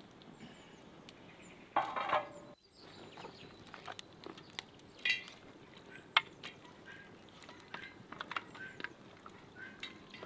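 A large metal pan clanks onto the fire stand about two seconds in, with a short ring. Then scattered clicks and light knocks as raw guinea fowl pieces go into the pan over a crackling wood fire, with poultry calling in the background.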